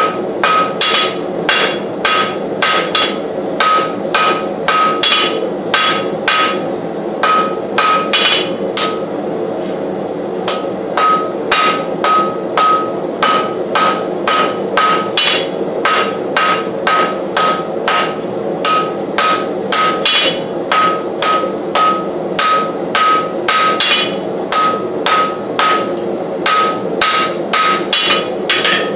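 Hammer blows on hot 1075 carbon steel on an anvil as a knife blade is shaped, about two a second, each with a short ringing ping; the hammering stops for a couple of seconds about nine seconds in, then resumes. A steady rushing noise runs underneath.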